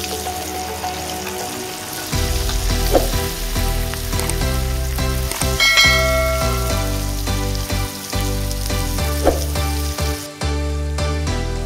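Ground fish mince sizzling as it fries in hot oil in a nonstick pan, while a wooden spatula stirs and turns it.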